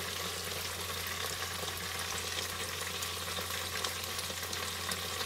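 Battered chicken wings deep-frying in a stainless steel pan of hot oil: a steady sizzle with fine crackling.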